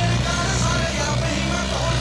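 Background music with a rock feel and a steady, dense mix.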